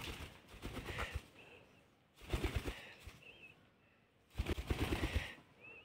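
Alexandrine parakeet beating its wings in three short bursts of rapid flapping, with a few faint short chirps in between.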